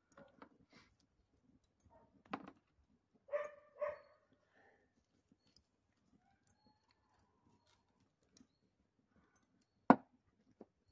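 A dog barks twice in quick succession a few seconds in. Near the end there is one sharp knock, the loudest sound.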